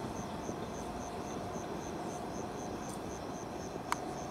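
Cricket chirping in steady, evenly spaced pulses about four a second, over a faint low rumble from the departing passenger train. A single sharp click sounds about four seconds in.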